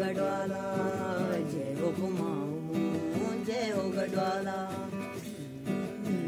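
Acoustic guitar played with a voice singing a slow melody over it in long, held notes that bend up and down.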